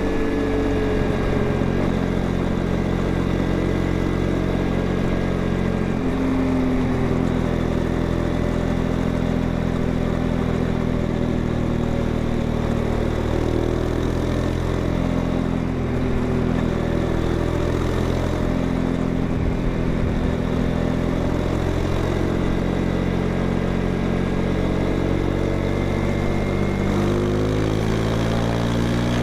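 Honda XRE 190's single-cylinder engine and exhaust running steadily, its pitch wavering slightly and climbing near the end.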